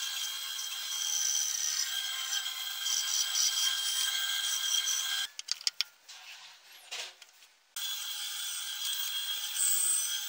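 Bandsaw cutting a block of wood: a steady motor and blade whine with the rasp of the blade going through the wood. A little after five seconds it cuts out suddenly, a few light clicks follow, and the sawing comes back suddenly about two and a half seconds later.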